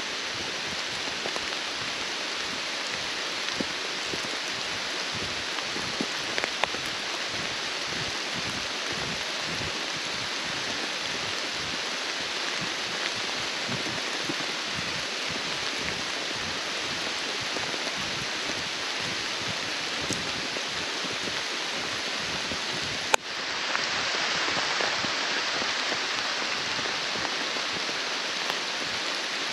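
Steady rain falling on forest leaves, an even hiss with soft footsteps on a dirt track underneath. A single sharp click comes about three quarters of the way through, after which the rain sounds slightly louder.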